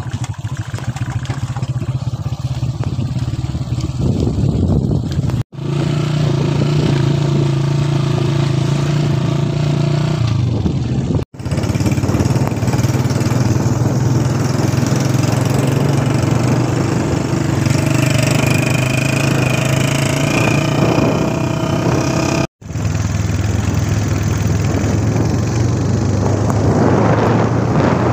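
Motorcycle engine running steadily on the move, a low even hum. The sound drops out for a split second three times.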